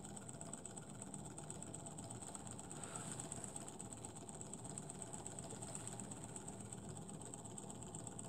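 Small model Stirling engine with tandem crankshafts running at speed, its crank linkage and flywheel making a faint, steady, fast mechanical ticking. It is running faster again now that its cool end has been cooled with water.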